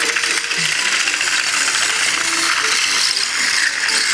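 Battery-powered TOMY toy Thomas engine running close up on plastic track: its small motor and gears make a steady whirring rattle.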